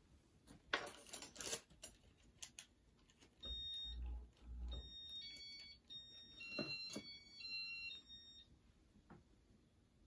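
A few clicks, then the Casablanca Victorian II ceiling fan's Inteli-Touch control sounds a run of electronic beeps at several pitches as the fan is switched on and starts turning, with a low hum under the first beeps.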